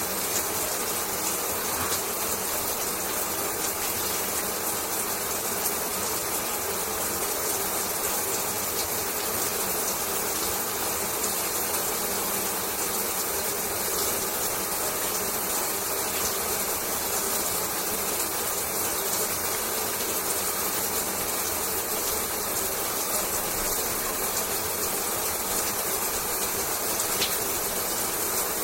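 Shower running: a steady spray of water falling, an even hiss that does not change.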